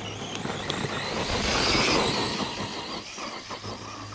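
Arrma Outcast 4S RC truck driving over sand and dirt: brushless electric motor and tyres running, getting louder about halfway through, then easing off.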